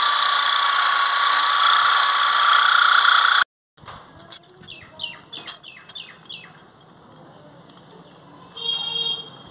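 Electric drill boring into a concrete parapet, running steadily with a whine that rises slightly, then stopping suddenly after about three and a half seconds. After it, birds chirp in a run of quick falling calls, with a short higher call near the end.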